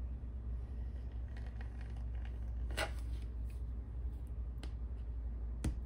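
Handheld tape cutter trimming washi tape along a paper planner page: faint scraping and light ticks, with a sharper click about three seconds in and another near the end, over a steady low hum.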